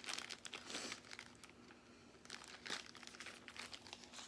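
Small clear plastic bags of diamond-painting drills crinkling faintly as they are handled, in short irregular rustles.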